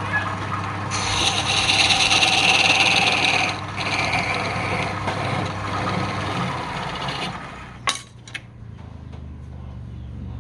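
Wood being rubbed and abraded against a workpiece spinning on a lathe, a steady hiss for about six seconds with a short break in the middle, over the low hum of the lathe motor. Two sharp knocks come near the end.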